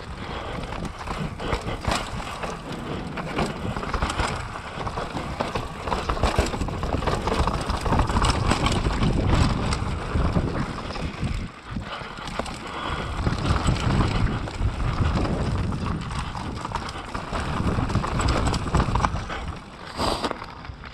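Mountain bike riding a dirt trail: tyres on dirt and rock with the bike clattering over bumps, a rapid irregular rattle of small knocks over a steady rush of wind and rolling noise that swells and eases.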